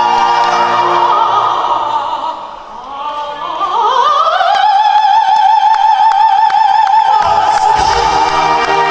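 Live operatic singing with a symphony orchestra: a singer's voice slides up into a long high note held with vibrato. A little after halfway the full band and orchestra come back in underneath with a low, heavy entry.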